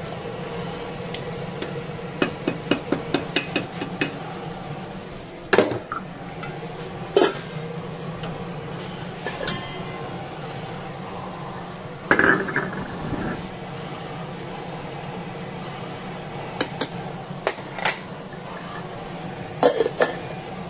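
Stainless steel cookware clattering on a gas stovetop: a quick run of about eight light taps, then scattered single clanks of pots and lids, one longer clatter near the middle, over a steady low hum.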